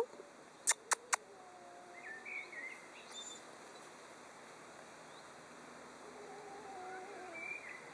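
Three sharp clicks in quick succession about a second in, then faint chirping calls in the background.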